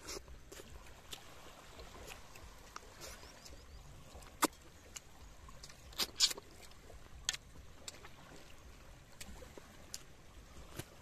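Scattered sharp clinks of spoons on plates and a metal pan while two people eat, loudest around the middle, over a faint steady wash of small waves lapping at the shore.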